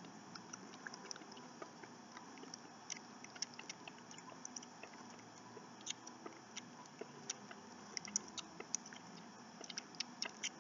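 Kittens suckling at a bottle teat: quiet, irregular wet clicks and smacks from their mouths, a few a second, coming more thickly near the end.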